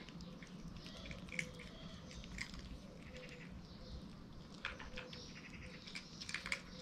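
Two kittens eating wet cat food from a plastic tray: faint smacking and chewing with small clicks of mouths and paws against the tray, more of them in the second half.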